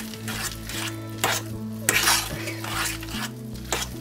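A metal fork stirring and scraping thick mashed potato and chopped vegetables around a stainless steel saucepan, with a few sharp clinks of the fork against the pan.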